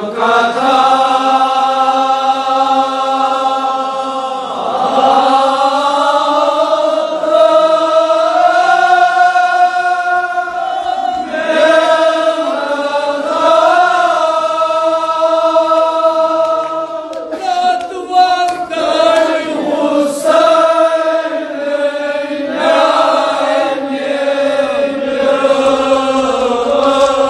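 Male voices chanting a Kashmiri marsiya, a Shia mourning elegy, together in long held notes with slow rises and falls in pitch.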